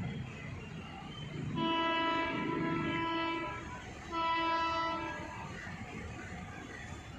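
Train horn of an unseen Indian Railways locomotive, blown twice: a long blast of nearly two seconds, then a shorter one about a second, over a low rumble.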